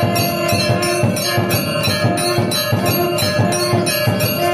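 Hindu temple bells ringing rapidly over a steady drumbeat, about four strikes a second, with the bell tones ringing on between strikes.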